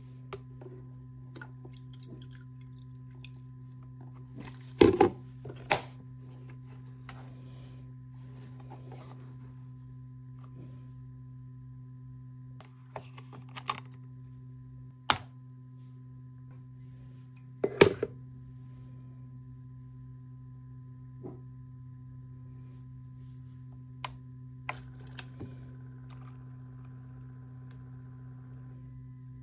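Steady low electrical hum with a faint high tone, broken by a few sharp knocks and clicks, the loudest about five and eighteen seconds in, like objects being handled and set down on a hard surface.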